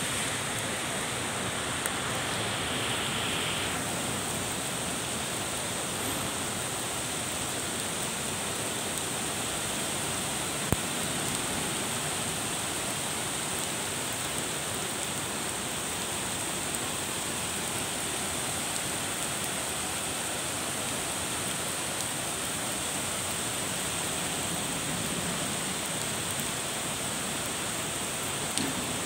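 Steady rain falling, an even continuous hiss. A single sharp click sounds about eleven seconds in.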